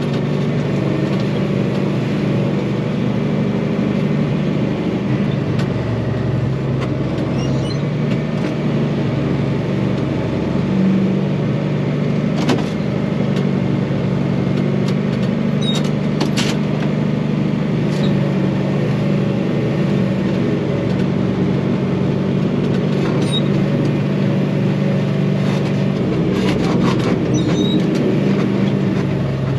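John Deere 2955 tractor's diesel engine running steadily, with a few sharp knocks around the middle.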